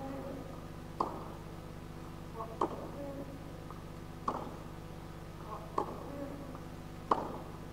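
Tennis rally on a clay court: a ball struck back and forth with five sharp racket hits roughly a second and a half apart, and fainter ticks of the ball bouncing between them.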